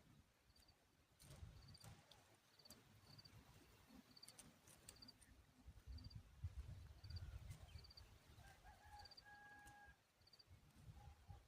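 Faint outdoor ambience: short, high chirps repeating every half second or so over a low rumble, with a brief steady whistle about nine seconds in.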